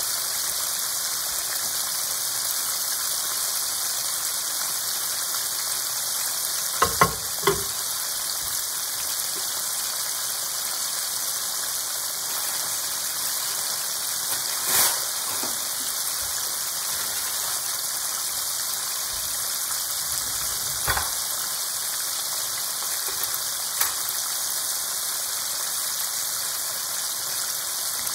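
Coated chicken pieces deep-frying in a pan of hot oil: a steady bubbling sizzle with a few sharper pops scattered through, two close together about a quarter of the way in.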